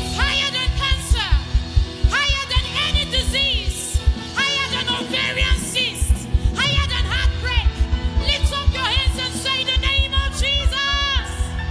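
A woman singing gospel worship into a microphone, with sliding, ornamented phrases over a live band's steady bass and drum pulse and cymbal washes.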